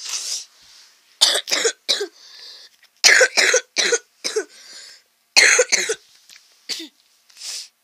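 A person coughing in three fits of three or four hard coughs each, with a breathy gasp for air between the fits.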